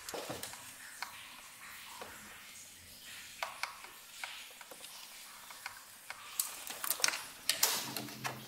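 Irregular clicks and metal taps of hand tools and parts while a thermostat is being refitted, with a louder flurry of clicks about seven seconds in.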